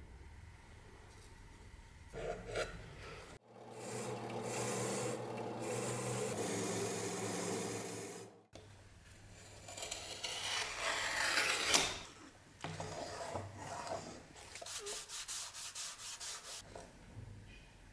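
A bench drill press runs a wire wheel brush against a steel blade, the motor humming steadily under the scratchy hiss of the bristles as they scour rust off. Later come rapid hand-rubbing strokes, several a second.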